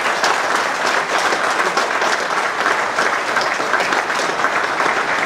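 Audience applauding, a dense and steady patter of many hands clapping.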